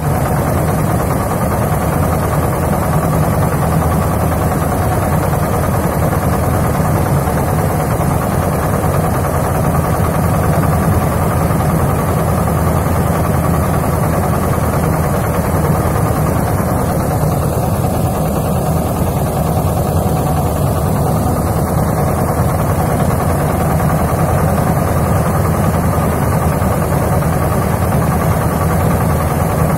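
Kirloshkar single-cylinder diesel engine running steadily, driving a small mini thresher as bundles of straw are fed into its drum.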